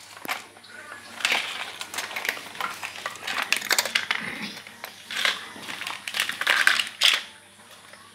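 Hard plastic clicking and clattering from a Hot Wheels two-lane track launcher being handled, with die-cast toy cars set into its lanes, in several bursts.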